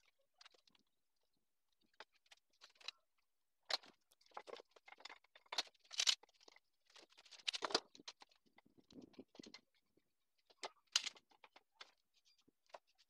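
Faint, scattered clicks, knocks and scrapes of hardwood strips and metal bar clamps being handled and set on a workbench during the glue-up of an end-grain cutting board. The loudest knocks come about six and seven and a half seconds in. Near the end come the clicks of the clamp screws being turned.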